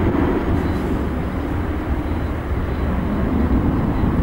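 Boeing 737's jet engines at takeoff power as the airliner climbs away just after takeoff: a steady, low rumbling roar.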